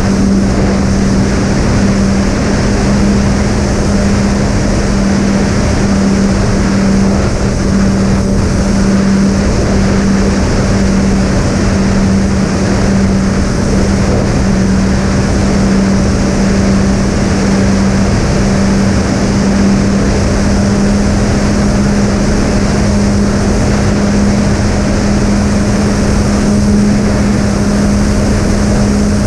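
Twin Sunnysky 2212 brushless motors of a fixed-wing RC plane, swinging three-blade 7x4 propellers, running at steady cruise throttle: a constant hum with a fainter higher tone over a rush of air noise.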